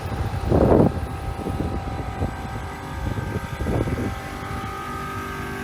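Tram running, a steady low rumble with a faint steady whine above it and two brief louder swells.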